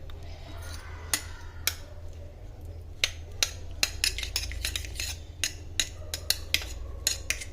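A spoon clinking and tapping against a dish in a string of short, irregular clicks, several a second, over a low steady hum.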